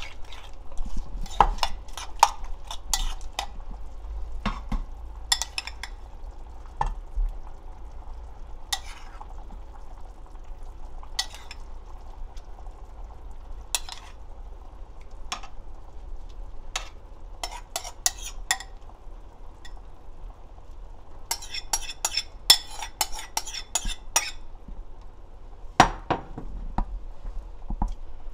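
Metal spoon clicking and scraping against a ceramic bowl while beating eggs with chopped green onion, with a quick run of taps near the end, over a pot of soup at a steady boil.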